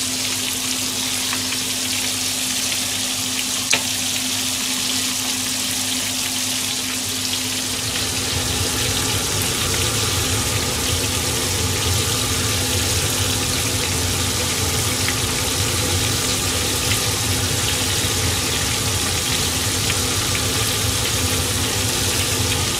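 Coated pieces of barracuda (kamasu) sizzling and bubbling steadily as they deep-fry in oil at about 180 °C in a frying pan, with more pieces being laid into the oil. A single sharp click sounds about four seconds in, and the frying grows fuller from about eight seconds on.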